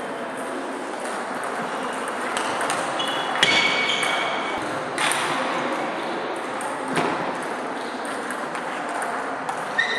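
Table tennis balls clicking off bats and table tops in a large hall, from the rally at hand and from neighbouring tables, over a steady hall hum. A brief squeak comes about three and a half seconds in.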